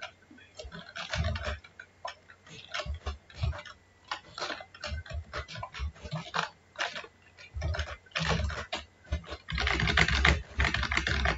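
Computer keyboard typing in irregular runs of keystrokes, with a dense, quick flurry near the end.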